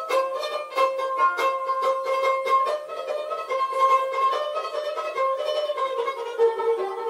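Instrumental background music with quick plucked notes over a held melody.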